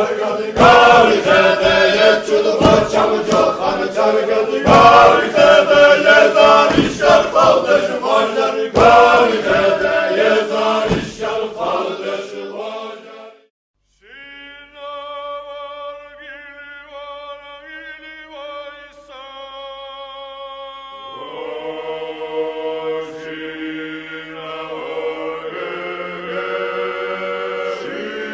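Music track of choral chanting: voices over sharp regular beats, which stop about 13 seconds in. After a brief break comes a slower piece of long held vocal notes, with more voices joining about 21 seconds in.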